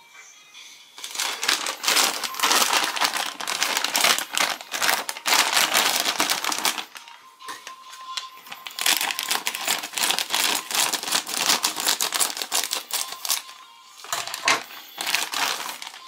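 Clear plastic toy packaging bag crinkling as it is handled and opened. It comes in two long spells, with a short break about seven seconds in.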